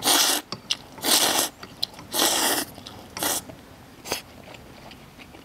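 A person slurping Guizhou rice noodles from a bowl: four loud slurps in the first three and a half seconds, then quieter chewing.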